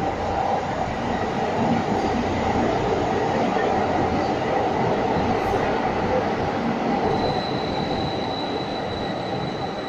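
Metro train pulling into an underground station, a steady rumble of wheels on rail that is loudest a few seconds in and then eases as it slows. A thin, steady high squeal starts about seven seconds in.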